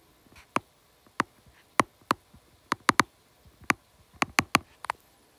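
About a dozen light, sharp taps at an irregular pace, some coming in quick pairs and threes: a stylus tip tapping on a tablet's glass screen.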